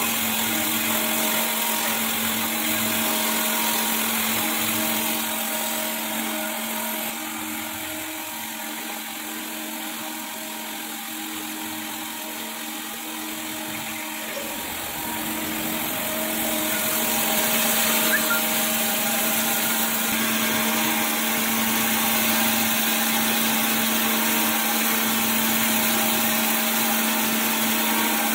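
Surface grinder running: a steady motor hum and the grinding wheel skimming the faces of worn hydraulic gear pump housings under a flood of coolant. The sound dips for several seconds about a third of the way in, then comes back up.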